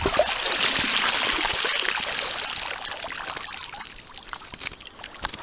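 Water pouring and splashing out of a wire-mesh keepnet full of crucian carp as it is lifted from the lake, thinning to a trickle and drips after about three seconds.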